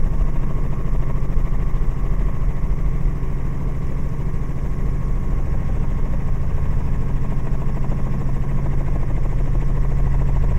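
Robinson R44 helicopter running steadily in flight, a continuous low drone of rotor and piston engine, on short final approach to land.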